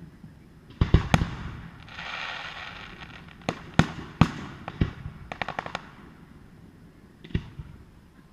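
Fireworks display: aerial shells bursting with sharp bangs, some in quick pairs, with a stretch of crackling fizz about two seconds in and a quick run of small pops after about five seconds.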